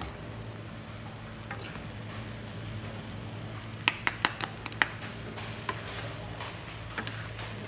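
Two wooden spatulas tossing stir-fried noodles in a pan, with a faint sizzle and a quick run of about six sharp clacks of wood against the pan about four seconds in.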